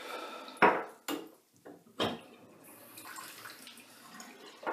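Three sharp clinks and knocks of hard shaving gear being handled at a sink, about half a second, one second and two seconds in, with a little water splashing and dripping between them.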